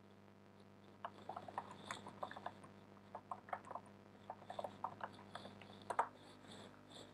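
Computer keyboard typing: a run of quick, irregular key clicks, several a second, with one louder click about six seconds in, over a faint steady hum.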